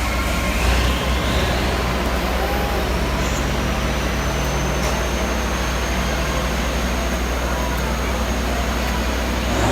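Steady milking-parlour machinery running, a loud low hum under a wash of noise. A thin high whine rises over the first few seconds and then holds steady.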